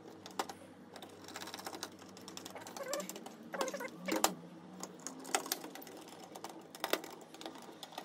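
Irregular small metal clicks, ticks and rattles of a steel hard-drive bracket and its tiny screws being handled and fitted by hand.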